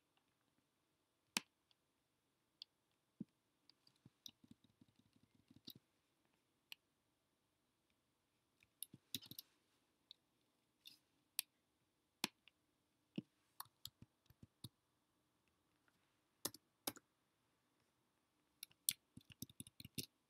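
Faint computer mouse and keyboard clicks: single clicks a second or two apart, with a few short runs of quick taps.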